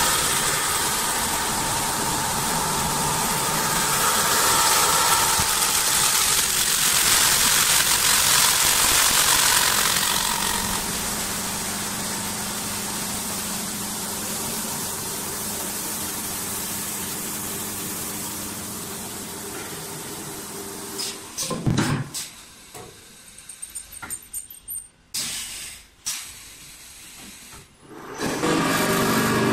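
Automatic CNC wood-turning lathe working: a steady machine hum with a high hiss, the hiss strongest in the first ten seconds. About 21 seconds in the machine noise drops away to a few seconds of scattered clicks and knocks, then it comes back loud near the end.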